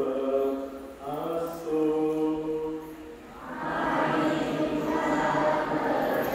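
A man's voice chanting in long, held notes, then from about three and a half seconds in a congregation singing together in response.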